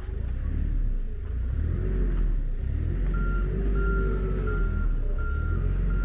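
A motor vehicle's engine running with a low rumble, its pitch rising and falling, and a reversing alarm sounding short, even beeps about three seconds in, roughly one every 0.7 seconds.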